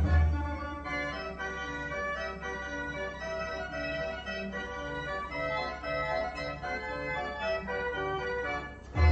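Background organ music: a melody of held notes, with a heavy bass beat that drops out at the start.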